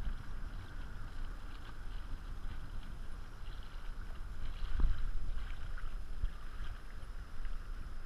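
Water lapping against a kayak hull with wind buffeting the microphone; one louder thump about five seconds in.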